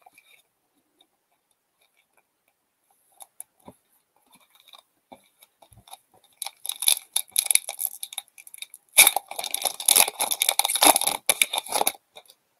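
Foil wrapper of an Upper Deck hockey card pack crinkling and tearing as it is ripped open by hand, starting about six seconds in and loudest near the end. A few faint taps come before it.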